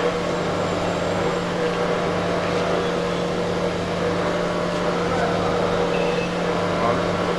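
Rebar forging and threading machine running, its motor giving a steady hum over a dense mechanical noise.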